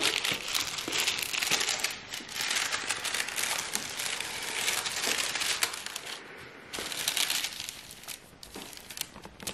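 Sheet of graphite transfer paper crinkling as it is handled and laid face down, a run of rustles and crackles with a short lull about six seconds in.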